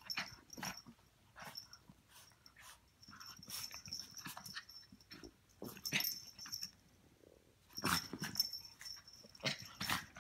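A Chihuahua and a Pomeranian play-fighting: short, irregular bursts of dog growls and scuffling, loudest about six and eight seconds in.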